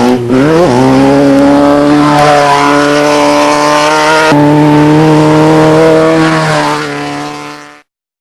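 Off-road race vehicle engine running hard at high revs. Its pitch dips and climbs again about a second in, then holds steady. It changes abruptly about four seconds in, fades near the end and cuts off.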